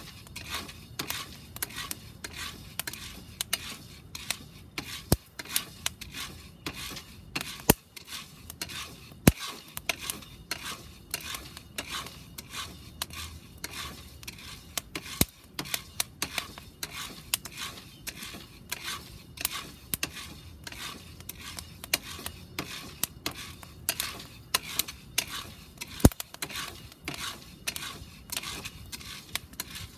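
Coffee beans roasting in a round cast-iron pot, stirred with a wooden spoon: the beans rattle and scrape against the iron, with sharp clicks several times a second and a few louder ones.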